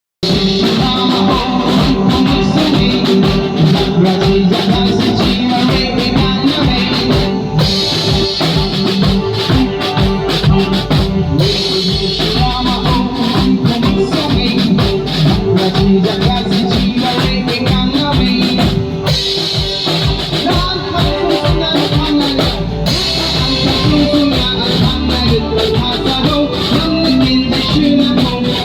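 Music with a drum kit and guitar, playing loud and without a break.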